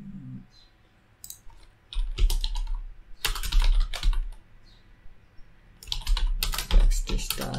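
Typing on a computer keyboard: several bursts of rapid keystrokes separated by short pauses.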